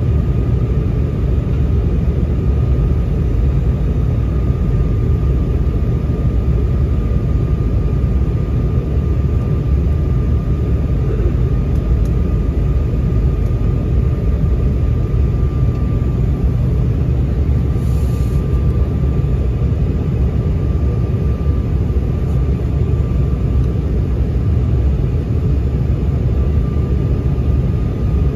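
Steady cabin noise inside an Embraer 195 airliner on approach: a deep rumble of airflow and its two GE CF34-10E turbofan engines, with a thin steady whine above it.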